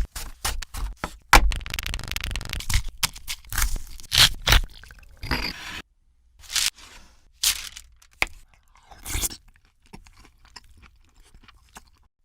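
Kitchen food preparation: irregular scraping and crunching knocks of utensils against food and hard surfaces, stopping briefly about six seconds in.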